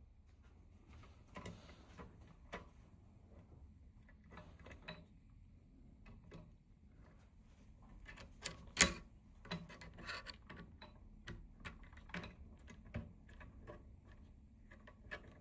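Scattered light metal clicks and taps from a hex-bit screwdriver turning a grub screw into a small brake hanger and from small steel parts being handled on a model locomotive's metal chassis. One sharper click comes about nine seconds in.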